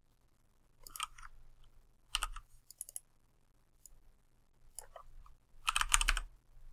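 Computer keyboard typing in short bursts of keystrokes, the longest and loudest flurry near the end.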